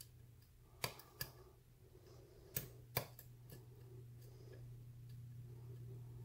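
Sharp clicks from a pick working the pin stack of an Ace 29mm solid brass pin-tumbler padlock during single-pin picking. Pins click as they set or drop back in a lock with spool pins. Two pairs of clicks come about a second in and about two and a half seconds in, with a fainter one just after.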